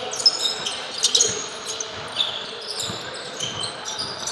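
Basketball bouncing on a court during play, with short high squeaks scattered throughout and a few dull thumps.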